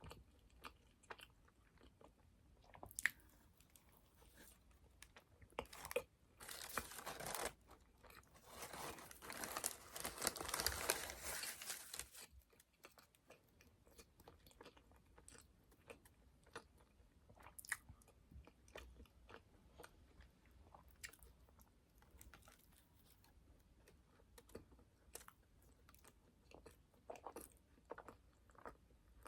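A person biting and chewing donuts close to the microphone, with small wet mouth clicks throughout. Two louder noisy stretches come about six seconds in and again from about eight to twelve seconds in.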